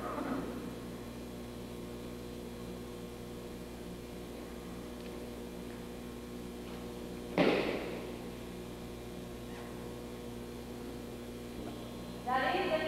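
Steady electrical mains hum, with a single heavy thud and short echo about seven seconds in: a thrown aikido partner landing on the mat.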